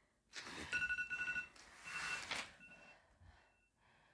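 Heavy breathing after a hard kettlebell workout: two long, rushing breaths in the first two and a half seconds, then quieter breathing. A faint high whistle comes and goes through it.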